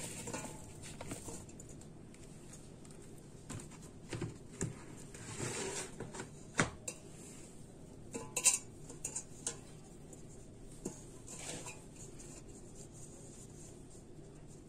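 Halved apricots being tipped into a metal pot and pushed around by hand: soft rustling and wet thuds with scattered sharper knocks against the pot. The loudest knocks come about eight and a half seconds in.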